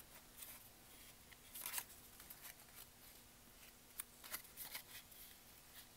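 Faint rustling and scraping of paper rose petals being curled around a wooden dowel, with a few soft ticks; one louder rustle about two seconds in.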